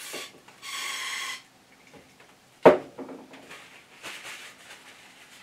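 Aerosol spray can hissing into the bore of a cast-iron lathe tailstock, a brief squirt and then a steady spray of about a second. A sharp knock follows a little later, the loudest sound, then faint rustling of paper tissue.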